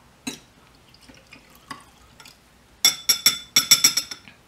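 Glass laboratory beakers clinking. A quiet pour of solution from a small beaker into a larger one is followed by the small beaker's rim tapping rapidly against the larger beaker's rim. This makes a quick run of about a dozen ringing glass clinks in the last second and a half.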